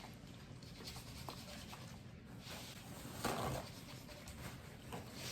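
Faint close-up chewing of a mouthful of buffalo chicken quesadilla: small wet mouth clicks, with a louder noisy burst a little past three seconds in.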